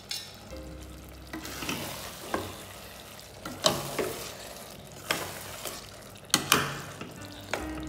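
Metal spatula stirring onion-tomato masala in a stainless steel pot, scraping and knocking against the pot about ten times in an uneven rhythm, over a light sizzle of frying. The strongest knocks come near the middle and again late on.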